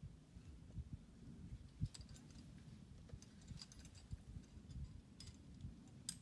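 Faint outdoor quiet: a low rumble with scattered faint clicks and ticks, the sharpest just before the end.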